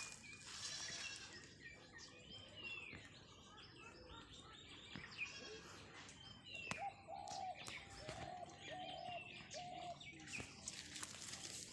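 Songbirds chirping and calling, with many short high chirps and whistles, and a run of about six short, evenly spaced lower calls a little past halfway.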